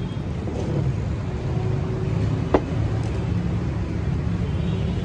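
Steady low rumble of wind on the microphone outdoors, with a single short sharp sound about two and a half seconds in.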